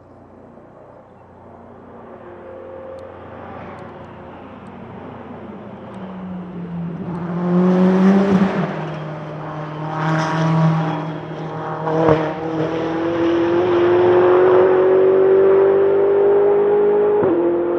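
Ferrari 488 GT Modificata's twin-turbo V8 race engine accelerating, its note growing louder and climbing in pitch, broken by several sharp gearshifts.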